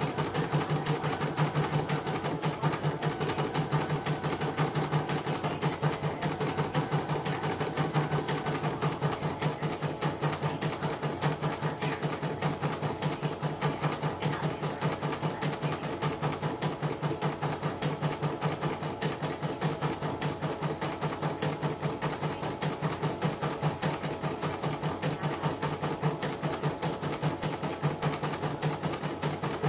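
CNY portable computerised embroidery machine, opened up for repair, stitching at a rapid, even rhythm as the needle drives up and down and the hoop shifts under it. This is a test run of a machine that came in dead, now running again with the thread feeding normally.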